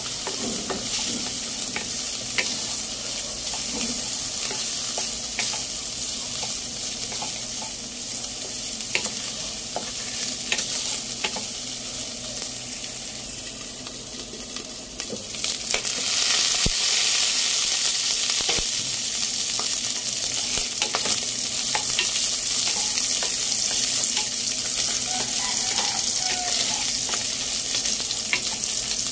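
Pork belly strips sizzling as they fry in oil in a nonstick wok, with light clicks of a wooden spatula stirring them against the pan. The sizzle gets louder about halfway through.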